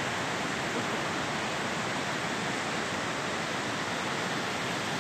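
Steady rushing of a shallow river running over stones and rapids.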